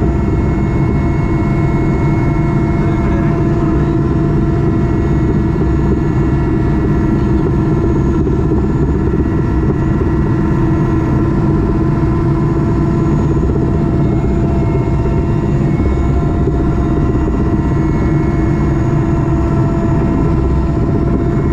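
Helicopter engine and rotor noise inside the cabin: a loud, steady low drone with a constant whine of several held tones over it.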